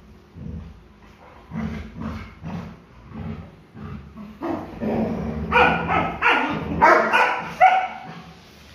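Labrador retriever puppy vocalising during tug-of-war play over a leash: softer short sounds in the first half, then a loud run of high yips and whining barks from about halfway in.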